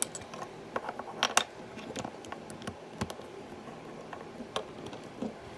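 Small plastic LEGO pieces clicking and tapping as they are handled and sorted, in a run of irregular sharp clicks. The loudest come about a second in and again about three seconds in.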